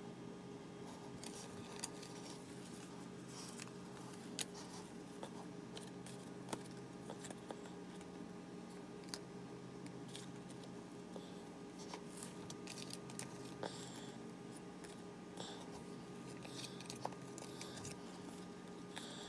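Pokémon trading cards being slid and flipped through in the hands: scattered short papery swishes and light clicks of card against card, over a steady low hum.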